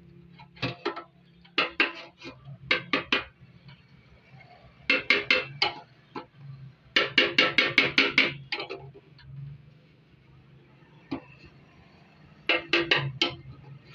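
A small metal hammer tapping on a Honda CD 70's sheet-steel fuel tank to work out a dent, in quick runs of a few to about ten light taps, each ringing briefly. A low steady hum runs underneath.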